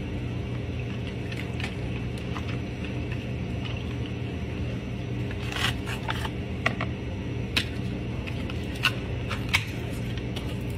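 A drink is poured from a pouch over ice in a clear plastic cup. Several sharp clicks and cracks of ice come in the second half, and a plastic lid is pressed onto the cup near the end.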